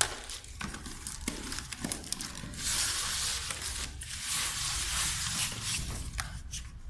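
Cardboard packaging scraping and rustling against styrofoam inserts as a monitor box's cardboard cover is worked loose and lifted off. A few sharp knocks come in the first two seconds, then two long rasping stretches in the middle.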